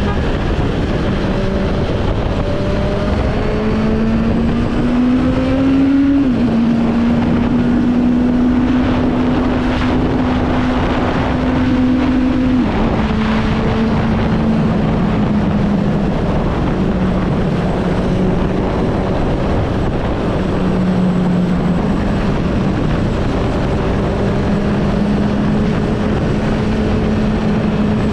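Suzuki GSR750's 750 cc four-cylinder engine running through an aftermarket Scorpion exhaust, a steady, even note. The pitch climbs slowly about four seconds in, drops suddenly a couple of seconds later, holds a little higher for several seconds, then settles back to its first note.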